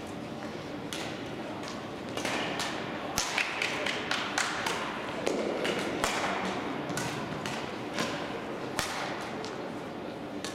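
Badminton rackets striking a shuttlecock during a doubles rally: a run of sharp, irregular cracks, busiest from about two seconds in, with more hits from other courts in play.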